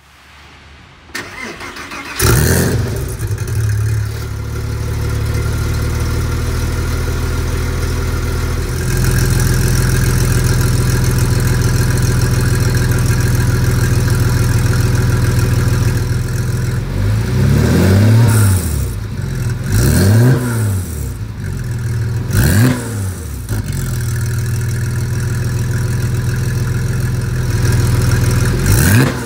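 Porsche 997 Carrera S 4.0L X51 flat-six, breathing through Porsche Sport Exhaust and custom active-valved corner pipes, starts up about two seconds in and settles to a steady idle in Sport mode, which steps louder about nine seconds in. A few quick throttle blips follow, each rising and falling, and another rev begins right at the end.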